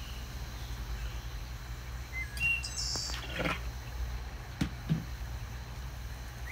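Birds chirping over a steady low background rumble, with a few short knocks as a plastic saucer lid is put on a compost pot and the stirring stick is set down, about halfway through.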